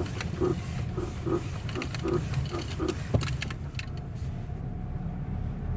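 Lada Vesta front suspension creaking repeatedly, about two or three creaks a second, with a sharp click about three seconds in, over the steady rumble of the car in motion. The owner hears this creak only when coasting and turning the steering wheel back and forth.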